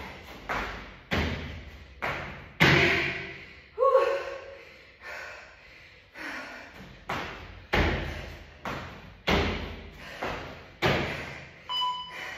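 Repeated heavy thuds on a floor from a workout exercise, about one every 0.7 s, each ringing briefly in the room. Near the end a workout timer starts beeping about once a second, like a countdown.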